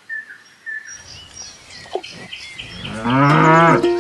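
Birds chirping in short repeated calls, then about three seconds in a loud, drawn-out farm-animal call with a wavering pitch, like a cow lowing.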